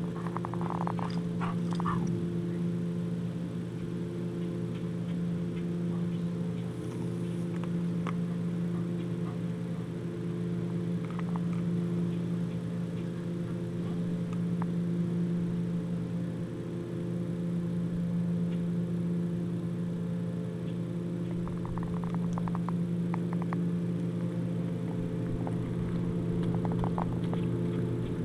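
A dog chewing and tearing at a whole raw chicken, with a few spells of crunching bones near the start and again later. Under it runs a steady low machine hum with a slow, regular pulse.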